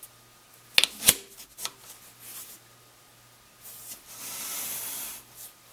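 A PVC-pipe tool clip being handled and fitted onto a lathe's round steel bed bar: two sharp clicks about a second in, then a scraping rub of plastic on steel near the end as the clip is pushed onto the bar.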